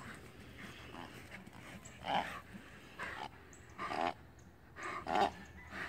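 Great Dane growling in short grunts, four in a row about a second apart.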